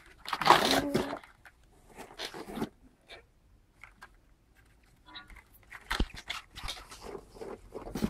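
Plastic packaging crinkling and crunching as fingerboard decks in clear plastic cases are handled and lifted from a cardboard box. It comes in irregular bursts, with a quiet spell in the middle.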